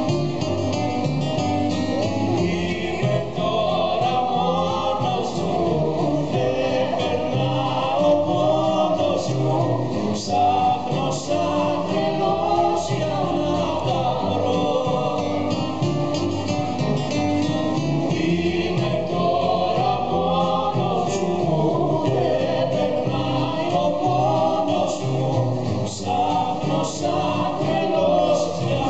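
Greek popular song performed live: sung vocals over band accompaniment.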